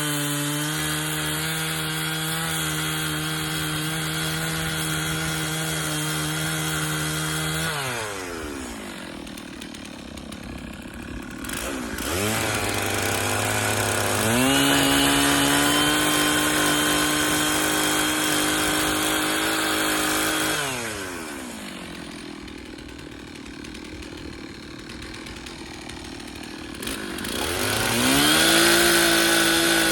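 Stihl 066 two-stroke chainsaw at full throttle cutting wood. The revs drop to idle twice and climb back to full speed each time, so the run has three high-revving stretches.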